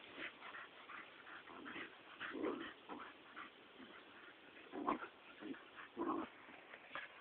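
Two dogs, a harrier hound and a pitbull mix, play-fighting: a run of short growls, grunts and yips, the loudest about two and a half, five and six seconds in.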